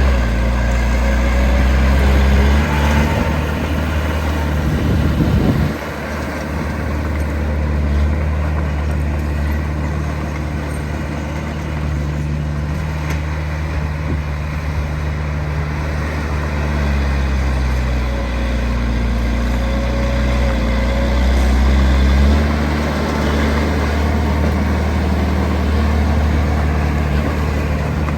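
Diesel engine of heavy earthmoving machinery running under varying load, its pitch and loudness rising and falling. It drops suddenly about five or six seconds in and runs louder again for a stretch later on.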